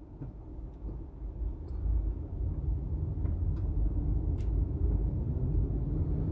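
Car engine and road noise heard from inside the moving car's cabin: a low, steady rumble that grows louder over the first couple of seconds, then holds.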